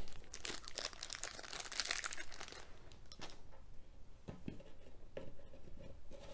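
Crinkling and rustling for about the first two and a half seconds, then a few light, separate knocks as parts of a particleboard cube shelf are handled and fitted together.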